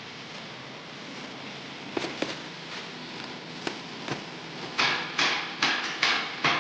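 A few light clicks, then five short, loud scraping rattles in quick succession near the end, like metal tool-box drawers being slid open and shut.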